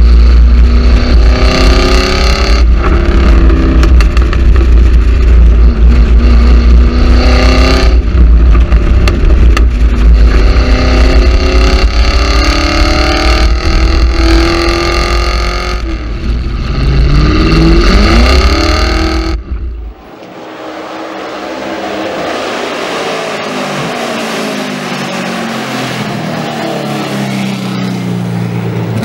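V8 car engine and exhaust, very loud, accelerating hard: the pitch climbs and drops back at several gear changes. About two-thirds through, the sound changes to a quieter, more distant engine whose pitch falls and rises as it runs by.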